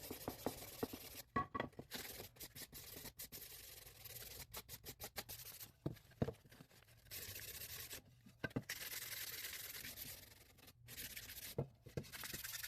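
Hand sanding the edges of pine birdhouse boards with sandpaper: several stretches of scratchy rubbing, a second or two each, with light knocks and clicks as the pieces are handled in between.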